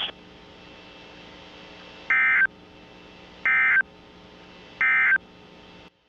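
Three short bursts of NOAA Weather Radio SAME digital data tones, about a second and a third apart, over a steady low radio hiss: the EAS end-of-message (EOM) code that closes the warning broadcast.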